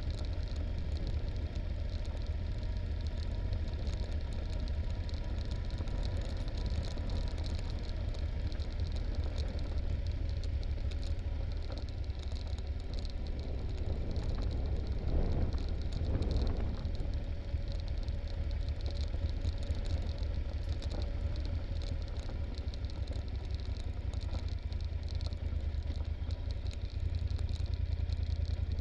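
Yamaha Super Ténéré's parallel-twin engine running at low revs as the motorcycle rolls slowly down a rough gravel track, a steady low rumble. It swells briefly about halfway through and steps up in level near the end.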